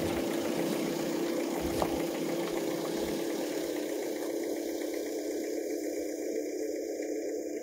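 Car engine idling steadily with a low hum, and a single short click about two seconds in.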